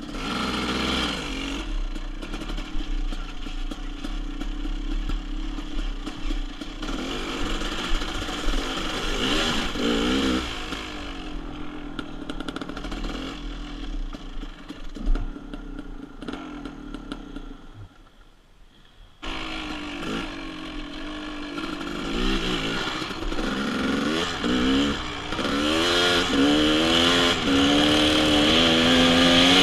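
KTM dirt bike engine revving up and down as the bike accelerates and shifts along a trail, with wind rush on a helmet-mounted camera. About two-thirds of the way through the engine drops to a short quiet lull, then cuts back in abruptly.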